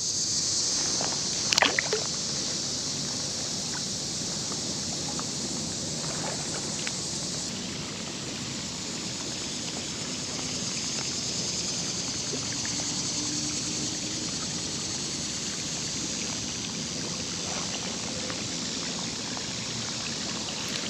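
Steady rush of road and highway traffic blended with the creek's running water. A high insect chirring carries over it until it stops about seven and a half seconds in, and there is one sharp click about a second and a half in.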